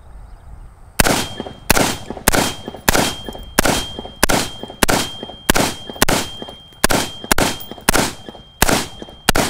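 Unsuppressed AR-15 in 5.56 fired in rapid semi-automatic succession, about fourteen shots at a steady pace starting about a second in. Each shot is followed by a thin high-pitched ring from the AAC 51T flash hider.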